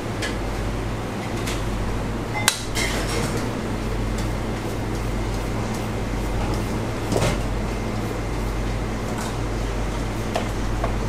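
Kitchen clatter: a few sharp clinks and knocks of dishes and utensils, the sharpest about two and a half seconds in, over a steady low hum.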